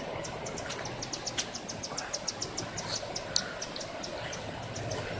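Floodwater running in a steady rush, with an insect chirping in a quick, even pulse, about six chirps a second. There is one sharp click a little past the middle.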